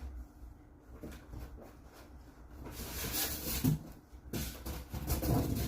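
Cardboard box and packing material being handled while someone searches inside the box: scattered light knocks and clicks, with stretches of rustling about halfway through and again near the end.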